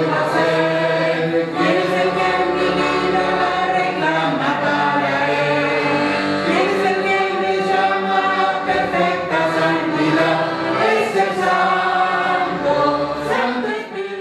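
A choir singing with musical accompaniment, held chords shifting throughout, fading out at the very end.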